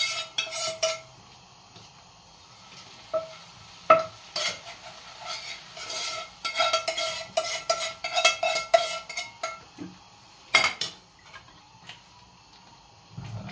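A metal spoon scraping and knocking against a frying pan and the rim of a stainless steel pot, with a ringing metal clink on many strokes, densest in the middle and with one sharp knock near the end. Toward the close the spoon stirs the thick wheat stew in the pot.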